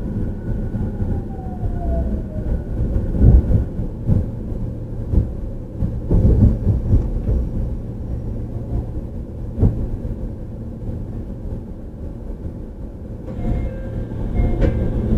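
Inside a JR 313 series electric train's motor car while running: a steady rolling rumble, broken by irregular clacks of wheels over rail joints. A falling whine comes in the first few seconds, and about 13 seconds in, the whine of the Toshiba IGBT traction inverter sets in.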